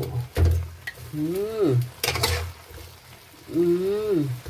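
Spatula stirring and scraping through a simmering coconut-milk stew of vegetables and fish in a pan, in repeated strokes over a sizzle. Three times, a short note that rises then falls sounds over the stirring, like a voice humming.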